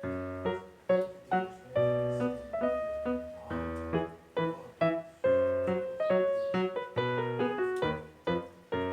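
Background piano music: struck notes and chords in a gentle, even rhythm, each note dying away before the next.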